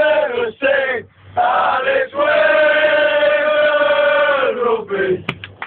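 A group of men, rugby league supporters, singing a chant together at close range. About two seconds in they hold one long note for a couple of seconds, and it slides down at its end.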